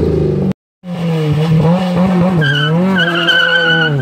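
Car engine held at high revs in a burnout, wavering in pitch, with the tires squealing from about halfway through. The sound drops out for a moment near the start.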